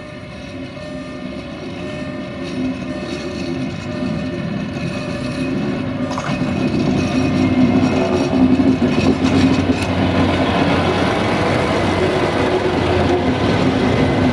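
Diesel engine of a MARUB UAM-215 track-maintenance rail vehicle running as it rolls slowly up and passes close by, getting steadily louder. A couple of sharp clicks are heard midway.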